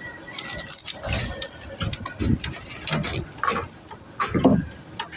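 Irregular clicks and knocks, some sharp and some heavier, with no steady rhythm.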